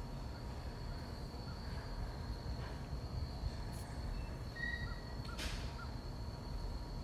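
Pine woods ambience: a steady high insect drone, with a few short bird chirps about five seconds in, over a low rumble on the microphone.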